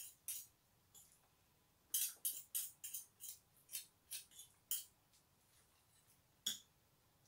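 Metal cutlery clinking and scraping on a plate: a couple of short taps, then a quick run of about a dozen light clinks between about two and five seconds in, and one last clink near the end.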